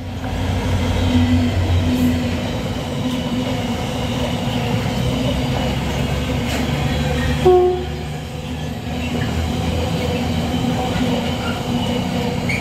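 Freightliner Class 66 diesel locomotive passing on a container freight train, its two-stroke V12 diesel engine droning at first. Then comes the steady running rumble of the container wagons over the track, with a brief tone about halfway through.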